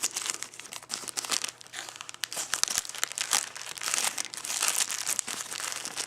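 Plastic parcel packaging crinkling and crackling as it is handled and pulled open by hand, a dense run of small crackles with some tearing.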